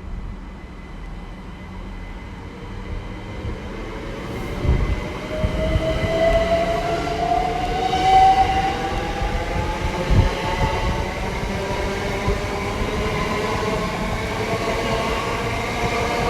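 Class 387 electric multiple unit moving off, its traction motors whining in several tones that climb steadily in pitch for a few seconds as it speeds up, then level out over a low rail rumble. The sound grows louder throughout.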